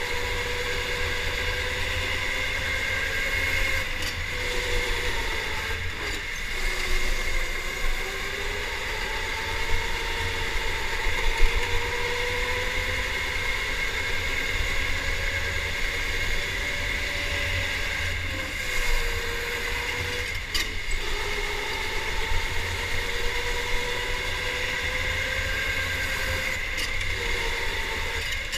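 Electric go-kart motor whining from the driver's seat, its pitch rising and falling with speed, over a steady low rumble. A few brief knocks come through along the way.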